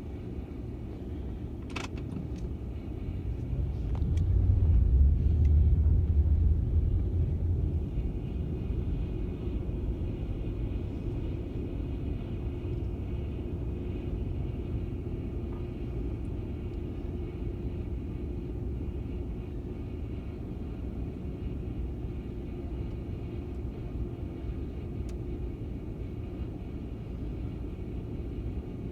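Skid steer engine running with a snowblower attachment working: a steady low rumble with a constant hum, swelling louder for a few seconds about four seconds in.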